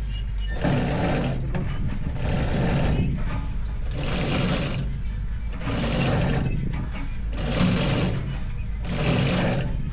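A machine running with a steady low hum under a rhythmic rasping noise that repeats about every second and a quarter.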